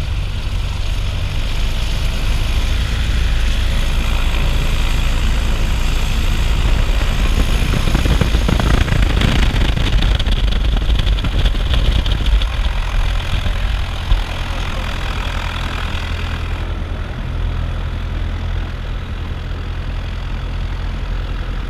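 Light aircraft's piston engine and propeller running at taxi power, heard from inside the cabin. The engine note swells in the middle and eases off again after about sixteen seconds, with a single light knock just before.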